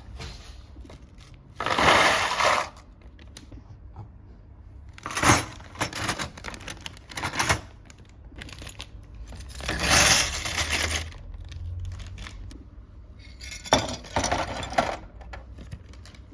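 Small metal construction-kit parts, screws and nuts clinking and rattling as they are handled, in several separate bursts of about a second each.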